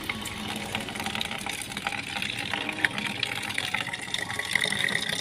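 Water running from a pipe into a plastic bucket, a steady splashing stream, with a few short knocks as plastic buckets are handled.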